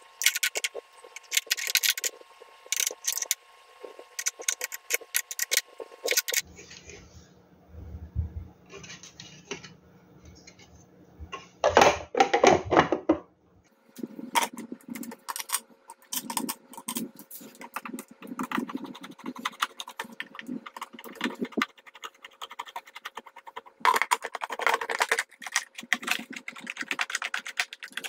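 A hand screwdriver working on a 3D-printed plastic RC tank hull: irregular small clicks, ticks and scrapes as screws are turned into the plastic cover plate. There is a louder scraping rustle about twelve seconds in.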